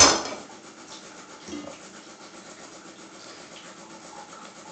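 A chef's knife set down on a wooden cutting board with a sharp knock, followed by a lighter knock about a second and a half in.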